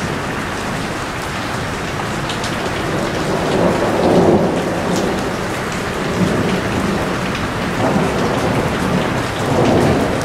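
Heavy rain falling steadily, with low rumbles of thunder swelling up about three seconds in and again near the end.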